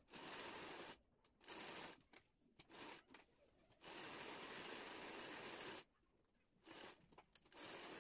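Sewing machine running faintly as it stitches a lace border onto a blouse. It runs in several short spells broken by dead-silent gaps, the longest spell about two seconds long, starting about four seconds in.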